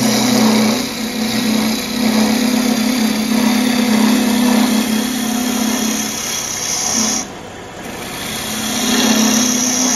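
A 1/4-inch bowl gouge making bevel-rubbing cuts into ambrosia maple spinning on a wood lathe: a steady hissing cut over a low hum. The cut breaks off briefly about seven seconds in and then starts again.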